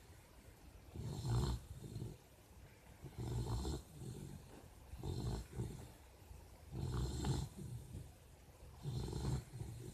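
Snoring: a steady run of loud snores, one roughly every two seconds, each lasting about a second, with quiet breathing between.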